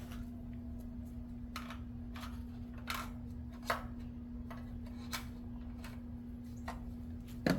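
Scattered light clicks and taps as headlight assembly parts are handled and fitted together, irregularly spaced, over a steady low hum.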